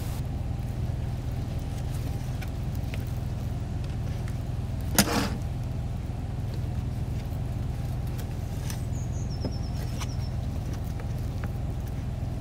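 A steady low hum like a running motor, with a chef's knife cutting salmon fillets on a plastic folding table over it: faint ticks and one sharp click about five seconds in. A brief high chirping call near the nine-second mark.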